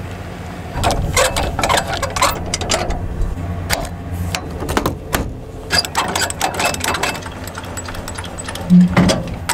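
Metal clicking and clanking from hitching up a trailer: rusty hitch hardware handled and the trailer's tongue jack cranked, many quick irregular knocks over a low steady hum.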